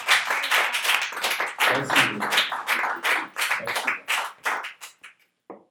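Small audience applauding by hand, the claps thinning out and stopping near the end.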